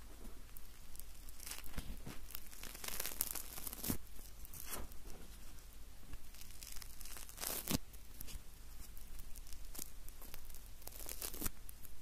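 Marshmallows being torn apart: sticky tearing and crackling sounds that come in several irregular bursts.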